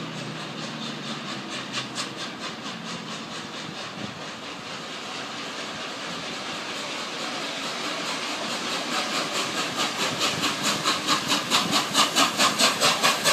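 Steam locomotive Tornado, an LNER Peppercorn A1 class Pacific, working under its own steam: its exhaust chuffs in an even rhythm of about three beats a second over a steady hiss, getting louder as it approaches.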